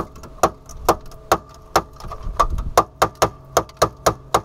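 Hammer blows on the front end of a Chevy S-10 pickup, beating a replacement headlight into its mounting: about a dozen sharp strikes at roughly two a second, each leaving a short metallic ring.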